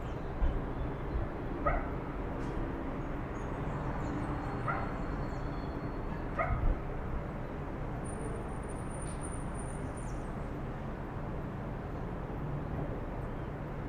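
Dogs giving three short, spaced-out barks or yips in the first half, over steady background noise; the barking stops after that.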